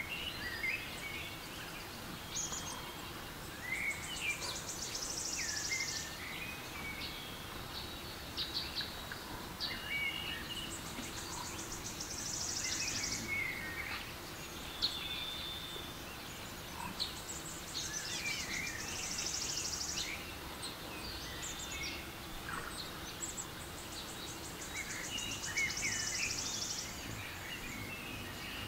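Recorded forest ambience with birdsong played from a nature-sounds app: many short bird chirps and whistles over a faint steady hiss. A rapid, high buzzing trill comes back about every seven seconds.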